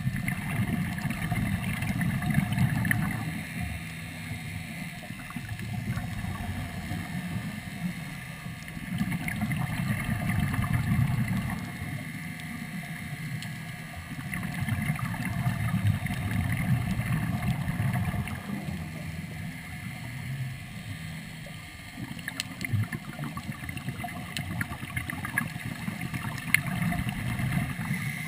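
Underwater through a GoPro housing: a diver breathing from a third-lung hookah regulator, the exhaled bubbles rumbling in swells every four to six seconds, with a faint steady hum underneath.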